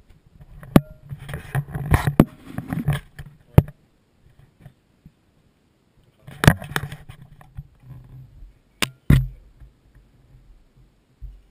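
Hands working hoses and cables in a jet ski's engine bay: irregular clicks, knocks and rustling, in two busy bursts, then two sharp clicks about nine seconds in.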